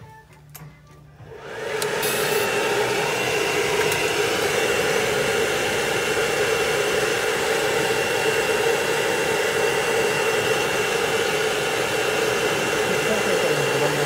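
A hair dryer switches on about two seconds in and runs steadily: a constant rush of blown air with a faint high whine.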